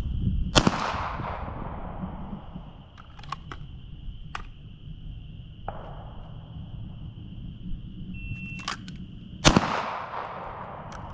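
Two pistol shots from a Sig P320, one about half a second in and one near the end, each with a long echoing tail. A shot timer beeps about a second before the second shot, and a few fainter sharp clicks fall between the shots.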